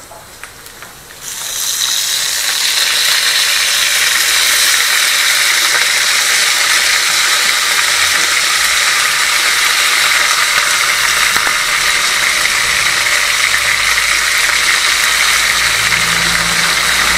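Loud, steady sizzling of wet cut vegetables being tipped into hot oil and fried meat in a cooking pot. It starts suddenly about a second in and holds as more vegetables go in.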